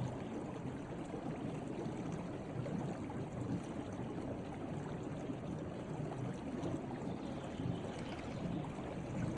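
Small snowmelt creek running, a steady rush of flowing water.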